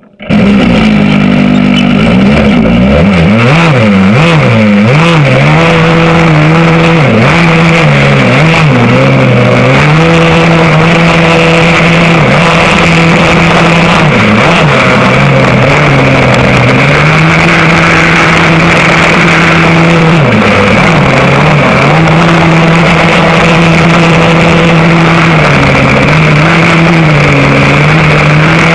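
Vintage rear-engine racing kart's engine, heard onboard at racing speed and very loud. Its pitch drops sharply every five or six seconds as the driver lifts for the corners, then climbs and holds steady down the straights.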